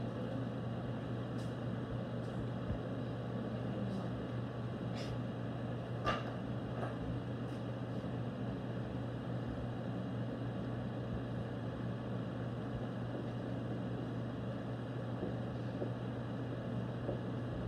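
Steady low hum with room noise, broken by a few faint clicks.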